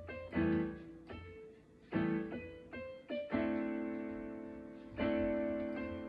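Piano chords struck one after another, each left to ring and fade. About three seconds in, a chord is held and slowly dies away, and another is struck near the end.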